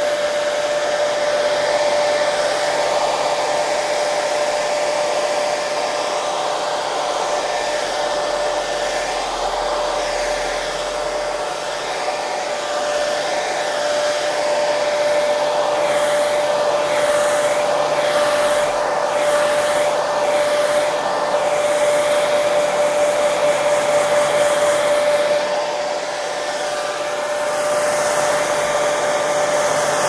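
Electric hair dryer running continuously: an even rushing blow of air with a steady motor whine, the loudness wavering a little.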